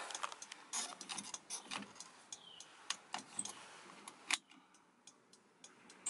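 Scattered light clicks and small rattles of handling, with one sharper click about four seconds in.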